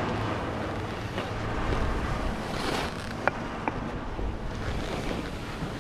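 Skis hissing and scraping over packed snow, with wind rushing over the microphone. The noise swells a little before the middle, and two sharp clicks follow soon after.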